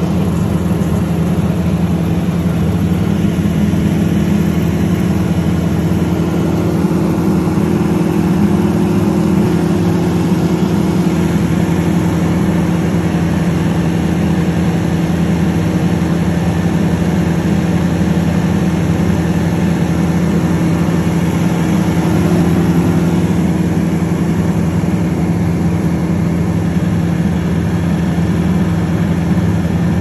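Compact tractor engine running at a steady speed, a constant unchanging drone.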